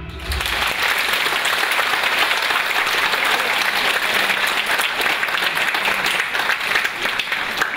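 Theatre audience applauding, a dense, steady clapping that breaks out right at the start as the dance music ends.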